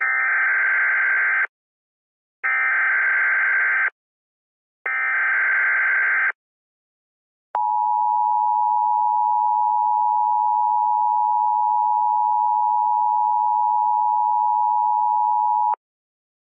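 Emergency Alert System header: three bursts of warbling data tones, each about a second and a half long, then the two-tone attention signal held steady for about eight seconds. It is the opening of an emergency alert.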